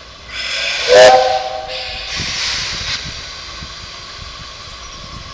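Steam locomotive letting off steam with a loud hiss, and about a second in a short blast of its steam whistle, several notes sounding together, its pitch bending up as it opens. A second rush of steam follows, then the hiss settles and fades.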